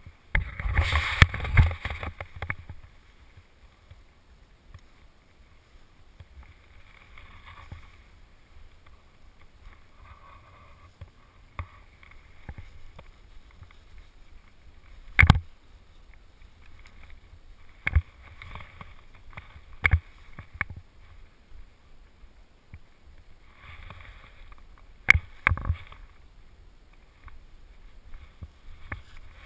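Steady low wind rumble on a body-worn camera's microphone, with a loud scuffling stretch in the first two seconds, soft patches of rustling, and about half a dozen sharp knocks as a speed-flying wing and its lines are handled and laid out on dry grass.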